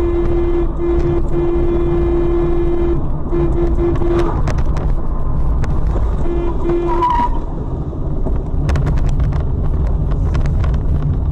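Loud road and engine rumble inside a moving car. A horn sounds in one long blast, then in several short blasts over the first four seconds, and once more briefly about six seconds in. A scatter of sharp clicks follows around nine seconds in.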